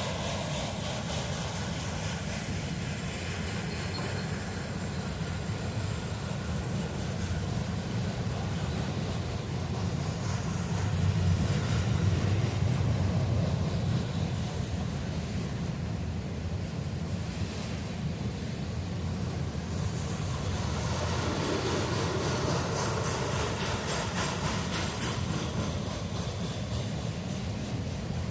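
Freight cars of a passing CSX manifest train rolling by: a steady rumble of wheels on the rails, a little louder about ten to fourteen seconds in.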